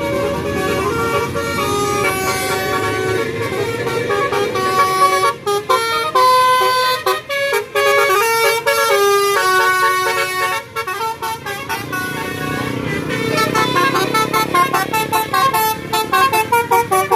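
Bus telolet horn, a Basuri electric multi-tone horn, playing a melody of stepped notes: held tones at first, then short notes with brief gaps, and a fast stuttering run of short repeated notes near the end.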